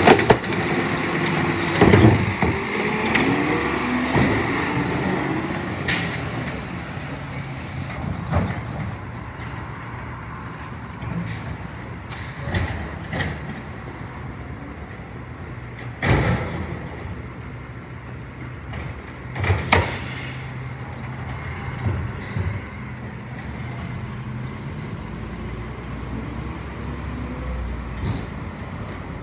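Automated side-loader garbage truck emptying a recycling cart: the hydraulic arm whines and the cart clanks against the hopper for the first several seconds. Then the truck's engine runs steadily, broken by several sudden sharp sounds of the kind air brakes and the cart arm make.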